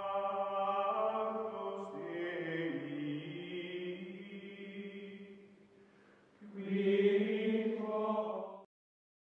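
Choral music: voices singing long held chords, the chord shifting about two seconds in and fading away, then one last louder chord that cuts off abruptly shortly before the end.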